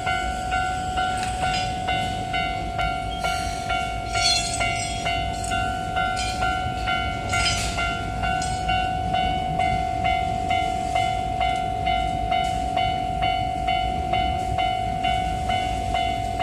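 Japanese level crossing warning bell ringing steadily, a little under two strikes a second, over the low rumble of a train. Brief bursts of hissing come about four and seven and a half seconds in.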